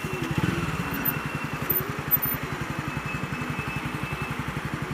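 Honda CB300R's single-cylinder engine running at idle, a steady, even putter.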